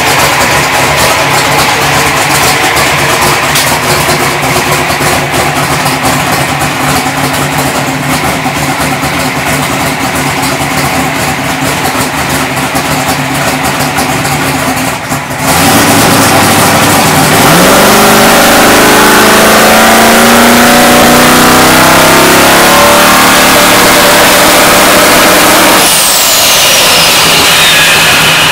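Twin-turbocharged 526 ci big-block V8 of a Pro Mod drag car running at a lumpy idle. About halfway through it gets louder, and its pitch climbs slowly as the revs are brought up. It drops back near the end, with a high whistle falling in pitch.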